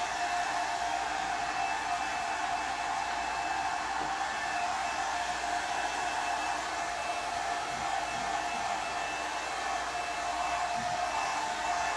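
Handheld hair dryer running steadily, blowing air with an even whine over freshly sprayed stencil paint to dry it.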